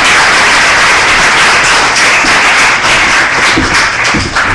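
Audience applauding at the end of a set, loud and steady, thinning a little near the end.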